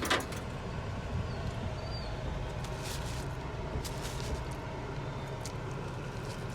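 Steady low rumble of street traffic, with a sharp click at the start and a few faint clicks and knocks after it.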